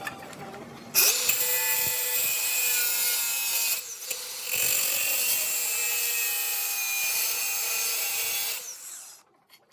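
A handheld power tool cutting out a handle shape, running at a steady whine with a loud hiss. It starts about a second in, drops off briefly near four seconds, cuts again, then stops near the end.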